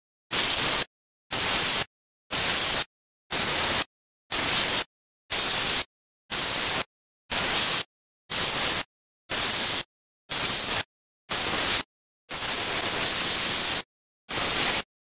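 Electric jigsaw cutting a quarter-inch acrylic sheet, heard as a hiss chopped into regular bursts about once a second with dead silence between them, and one longer burst near the end.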